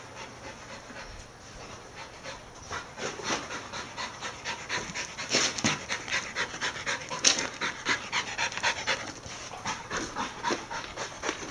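A kelpie panting fast and rhythmically, winded from play; the breaths start faint and grow louder a few seconds in.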